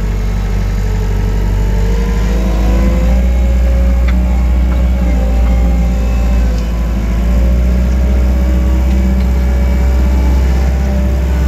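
Wacker Neuson 901 loader's diesel engine running under load, heard from inside the cab. Its pitch rises about two seconds in, sags briefly around six to seven seconds, then picks up again and holds as the machine is driven.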